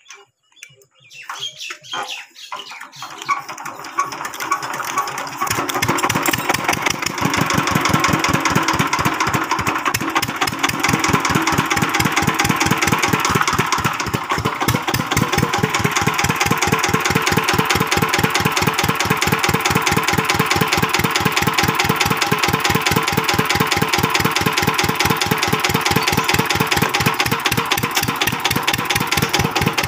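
Single-cylinder 'Peter' diesel engine of a tubewell pump being cranked and started: a few uneven clanks at first, then it catches about five seconds in and runs on with a steady, rapid, even beat.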